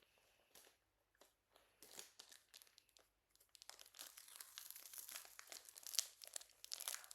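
Crinkling and rustling of medical supply packaging being handled and opened. A few scattered taps come first, then steady close crinkling from about halfway through.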